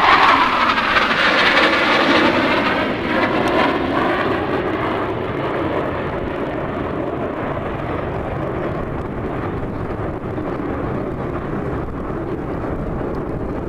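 Airplane flying past: the engine noise is loudest in the first couple of seconds, then falls in pitch and fades to a steady distant drone.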